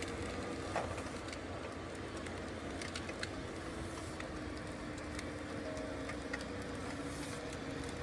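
Plantma X forestry planting machine running steadily at work, a constant engine hum with a few light clicks and knocks from the machinery.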